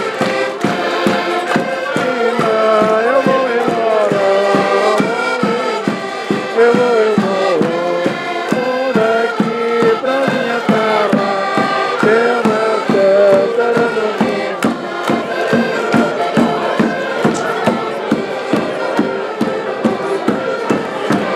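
Portuguese folk group playing and singing: voices sing together over sustained melody instruments and a steady bass drum beat. About two-thirds of the way through the singing stops and the instruments play on.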